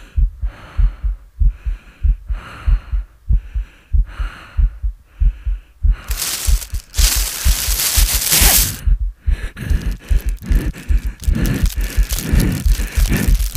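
Sound-designed heartbeat thumping steadily under rhythmic breathing. About six seconds in, a loud rush of clear plastic bag rustling as it is drawn over, then plastic crinkling over the still-beating heart.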